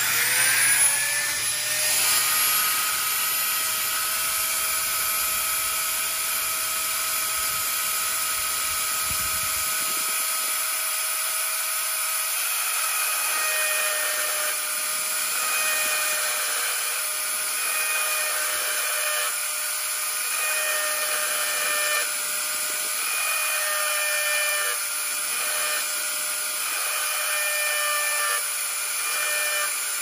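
Dremel rotary tool with a diamond engraving tip spins up with a short rising whine, then runs at a steady high whine, its pitch dipping a little now and then, as it engraves lettering into the steel main blade of a Victorinox Spartan pocket knife.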